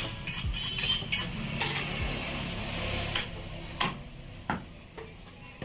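Butcher's knife working a slab of beef on a wooden chopping block: irregular sharp knocks and scrapes of the blade against the block, about half a dozen, over a steady low rumble.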